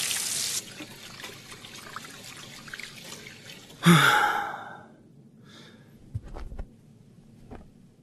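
Bathroom tap running into cupped hands, loud for the first half-second and then a steadier trickle. About four seconds in comes a louder splash with a breathy sigh, then a few soft knocks near the end.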